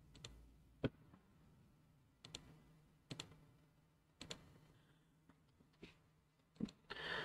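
Faint, scattered computer mouse clicks, about eight in all, one close pair among them about three seconds in.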